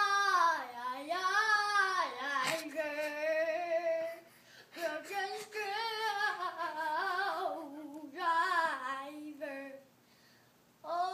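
A young boy singing loudly, in long held notes that slide up and down in pitch, in several phrases. The singing stops shortly before the end.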